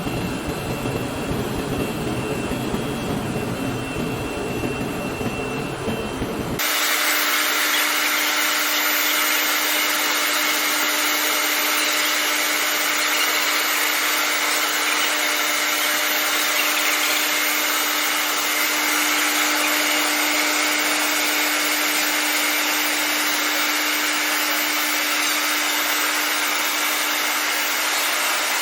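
Tank 2500 floor grinder running steadily. About six and a half seconds in, the deep rumble drops out suddenly, leaving a steady hum with hiss above it.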